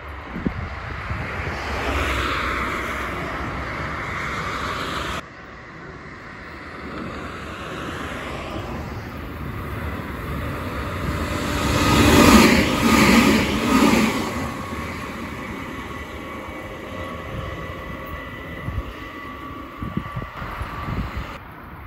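Road traffic: cars going past, the loudest one passing close in the middle, over a steady background hum. The sound drops suddenly about five seconds in.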